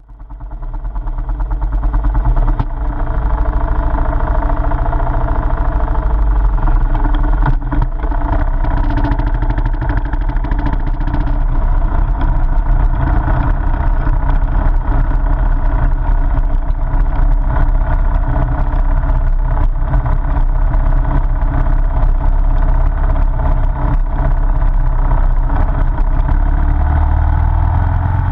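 Motorcycle engine running steadily as the bike rides along a dirt road, heard from a camera mounted on the bike, with frequent short knocks from the rough surface. The sound fades in over the first second or two.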